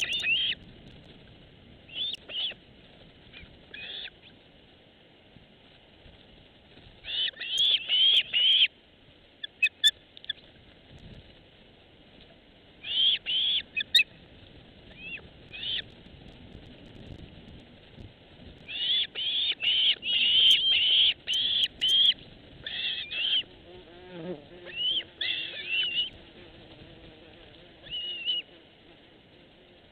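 A bird calling in repeated bursts of short, high chirps, several to a burst, each chirp bending up and then down in pitch, with pauses of a second or more between bursts.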